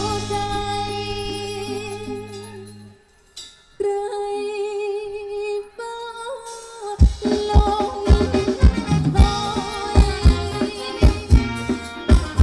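Live Thai ramwong band music. The drums drop out and the music dips almost to silence about three seconds in, then a lone sustained melody with a wavering pitch carries on, and a steady drum beat comes back in about halfway through.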